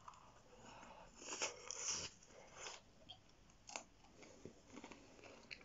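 A person chewing a mouthful of oven fries close to the microphone: soft, irregular bites and mouth clicks, louder about one to two seconds in.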